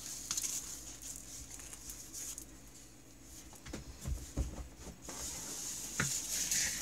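Faint handling noises around a snowmobile engine on a workbench: a few soft knocks about four seconds in, another near six seconds, and a light rustle near the end.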